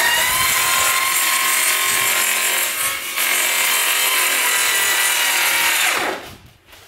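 Makita cordless circular saw cutting through a cardboard concrete form tube, its motor whining steadily under load. About six seconds in the trigger is released and the blade winds down.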